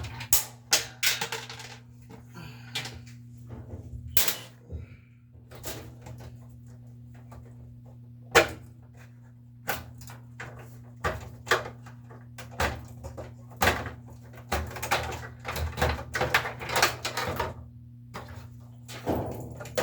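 Irregular knocks, bumps and clatter of parts being handled, over a steady low hum.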